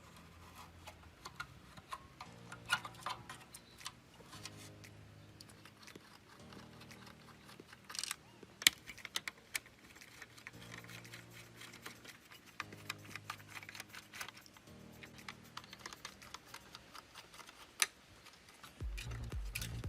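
Scattered sharp clicks and taps of hand tools and small parts being handled while a radio is worked on, with two louder clicks about nine seconds in and near the end. Soft background music runs under them.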